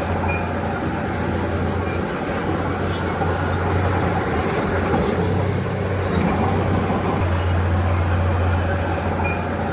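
Diesel engine of a Komatsu D31P crawler bulldozer running under working load. Its low drone eases off and picks up again a few times, with faint high squeaks over it.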